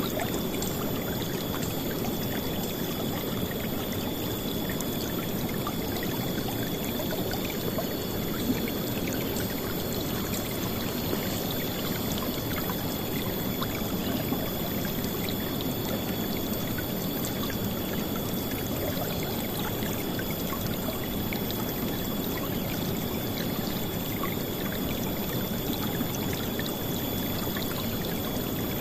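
River water flowing steadily over rocks: a continuous rush with many small splashes, at an even level throughout.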